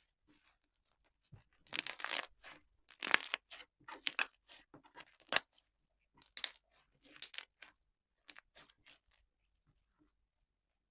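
Slime being handled by hand, with a string of irregular sticky, crackling tearing sounds, busiest in the first half and thinning out near the end.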